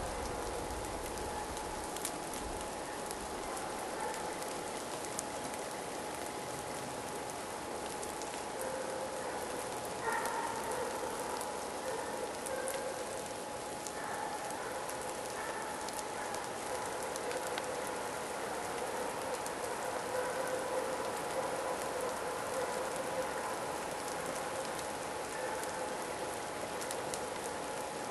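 Steady light rain pattering, a dense run of fine drop ticks. A faint pitched sound comes and goes over it, clearest about ten seconds in.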